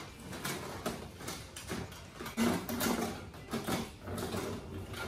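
Long tubes of a clothes rack being drawn out of their cardboard box: scraping and rustling against the cardboard and packing, with irregular light knocks and clacks as the tubes hit each other and the box.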